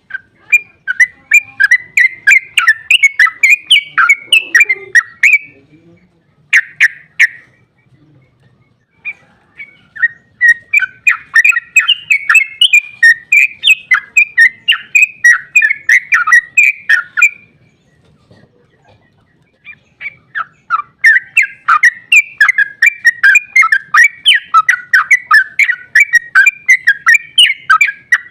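Yellow-vented bulbul (trucukan) singing its long, rapid bubbling song, a quick chatter of notes several a second. It comes in three long runs split by pauses of a few seconds, with a short burst in the first pause.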